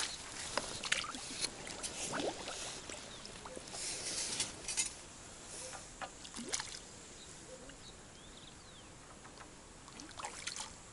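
Light splashing and sloshing of water as a foul-hooked fish thrashes at the surface while it is played on a long pole rod. There are a few short splashes, most in the first half, and a couple more near the end.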